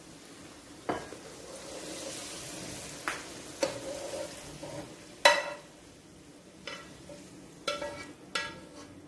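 Fried chicken pieces being scraped out of a hot frying pan into a bowl: a run of sharp clinks with a ringing tone, about eight in all, the loudest about five seconds in, over a faint sizzle.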